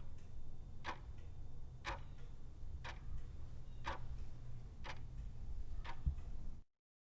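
Clock ticking about once a second over a low hum, as a quiz countdown timer. The sound cuts off abruptly near the end.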